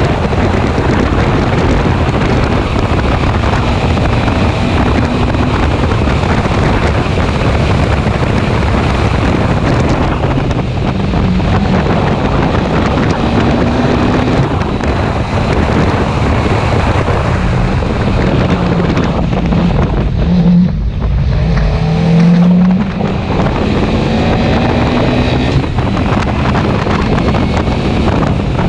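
Škoda Fabia's 1.4-litre 16-valve four-cylinder engine running hard at speed, heard on board with wind and road noise. The engine note rises and falls, with two brief dips about two-thirds of the way through.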